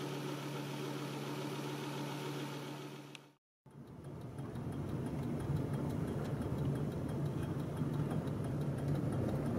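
Car engine idling with a steady hum. After a short break in the sound about three seconds in, the car is driving, its engine and road rumble running steadily.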